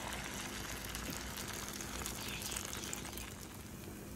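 Beaten egg mixture with chopped spring onion and tomato sizzling and crackling in a hot nonstick frying pan cooked without oil, as it is poured in and spreads; the sizzle eases a little about three seconds in.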